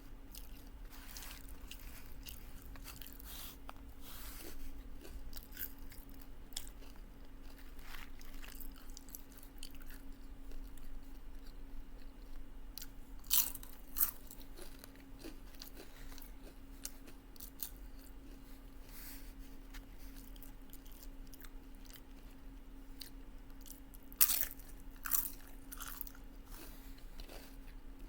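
Close-miked chewing of taco salad with tortilla chips: wet mouth noises and crunching, with a few sharp crunches of chip about halfway through and again near the end. A faint steady hum sits underneath.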